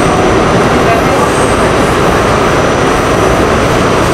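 Interior noise of an R68 New York City subway car running along the track: a loud, steady rumble and rush of wheels and motors heard from inside the car.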